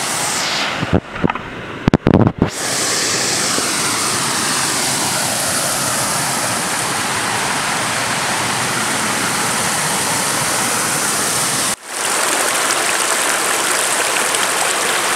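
Shallow rocky stream running over small cascades: a steady rush of water. A few brief thumps and dropouts break it in the first few seconds, with a short dip later on.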